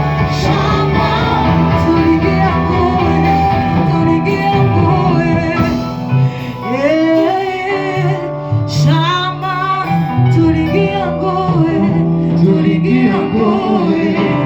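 Church worship song: voices singing over a band with guitar and a steady bass line.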